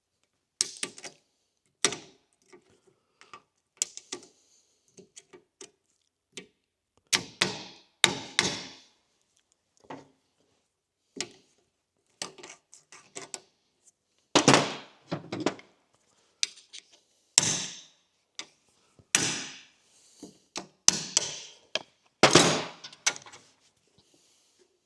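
Irregular metallic clicks, taps and scrapes as the retaining clips are worked into the bearing-cap grooves of a newly pressed-in universal joint on a Willys MB driveshaft yoke, with several louder knocks.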